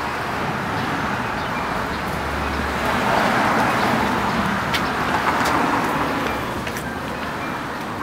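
Street traffic: a car passing, its road noise swelling about three seconds in and fading after about six seconds.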